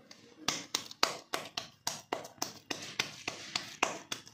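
Wet palms patting a soft ball of maize-flour dough back and forth by hand to flatten it into a makki ki roti. The pats are sharp and even, about three to four a second, beginning about half a second in.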